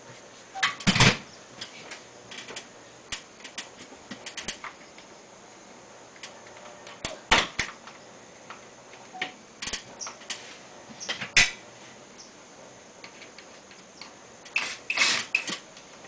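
Scattered clicks, knocks and clatters of hand work on a stepladder and with hand tools during air-conditioner installation work. The sharpest knocks come about a second in, around the middle, and in a short cluster near the end.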